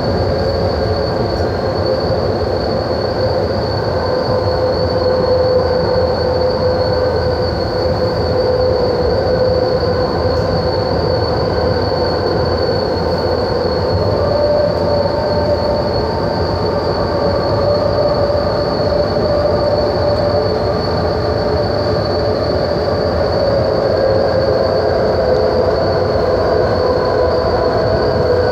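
BART train running at speed, heard from inside the passenger car: a steady rumble of running noise with a constant high-pitched whine over it.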